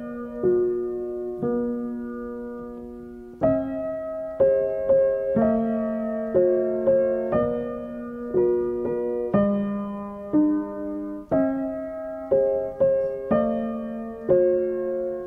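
Background music: slow, gentle solo piano playing single notes and soft chords, each note left to ring and fade.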